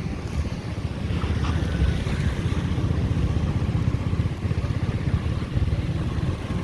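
Wind buffeting the microphone: an uneven low rumble that flutters throughout.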